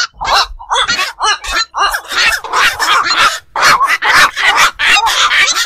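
Black-crowned night herons calling: a dense run of short, harsh croaks and squawks, several a second and often overlapping, with hardly a pause.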